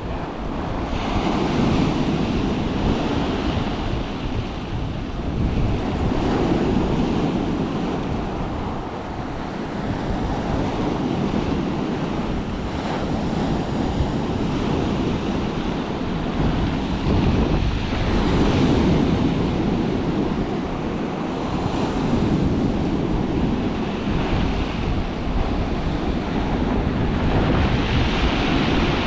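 Sea surf washing on the shore, swelling and easing every few seconds, with wind buffeting the microphone.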